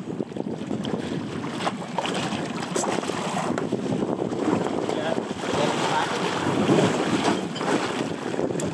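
Wind buffeting the microphone over the wash of water against a small boat's hull, with a few short knocks.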